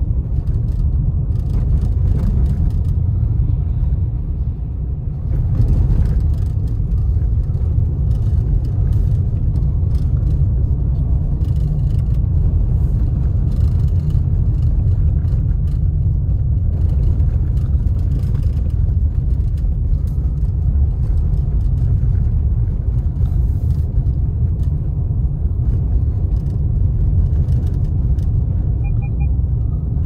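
Car driving on a snow-packed road, heard from inside the cabin: a steady low rumble of tyre and road noise.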